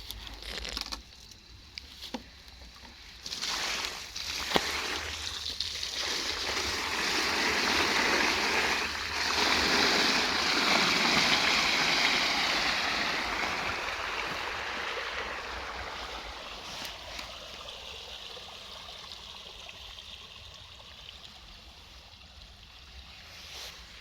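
Rushing, splashing water. It builds up over the first few seconds, is loudest in the middle, then slowly fades away.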